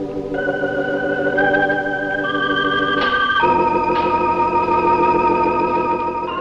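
Organ music: sustained chords changing every second or so, then a long held chord from about halfway through.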